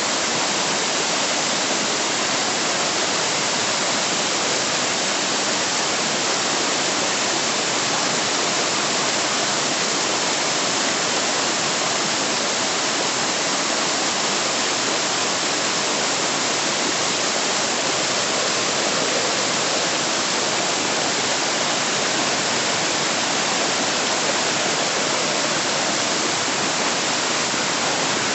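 Waterfall: the steady, unbroken rush of falling water, its hiss strongest in the upper range.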